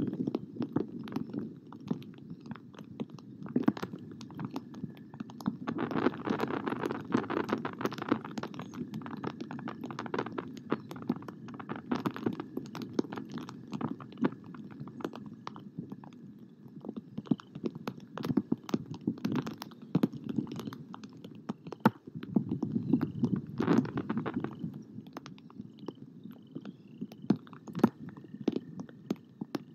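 Rain falling on and around an outdoor nest-cam microphone: dense, irregular taps of drops over a low rumbling hiss.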